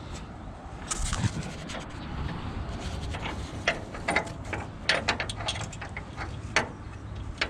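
Irregular metal clinks and knocks of hand tools and bolts being worked under a car, over a low wind rumble on the microphone.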